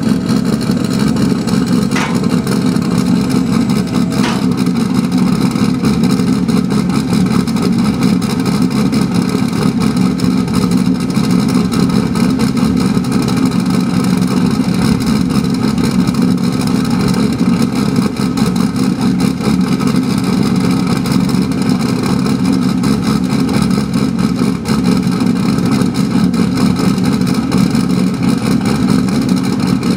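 Car engine idling steadily with a dense, even exhaust pulse, run so the freshly sealed exhaust joints behind the headers can be checked for leaks. A faint steady tone stops with a small click about four seconds in.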